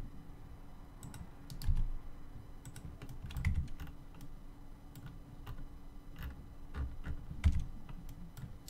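Computer keyboard keystrokes and mouse-button clicks, irregular and sparse, with a few louder taps.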